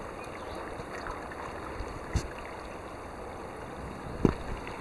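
Steady wash of water with two short knocks, a small one about two seconds in and a louder one about four seconds in.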